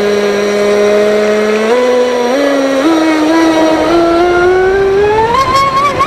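Traxxas M41 RC speed boat's brushless electric motor whining at full throttle on 6S. Its pitch holds, then climbs in a few quick steps and rises steadily as the boat gets up to speed, heard from the boat's own deck.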